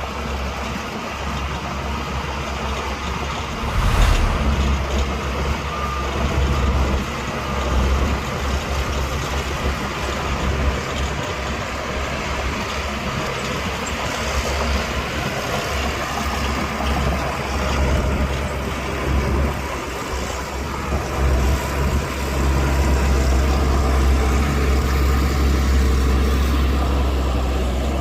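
Heavy diesel earthmoving machinery running at a low, steady rumble, with one sharp knock about four seconds in and the engine noise swelling a little near the end.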